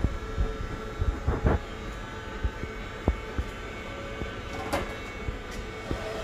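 Barbershop room noise: a steady hum, with scattered short clicks and knocks from the work going on.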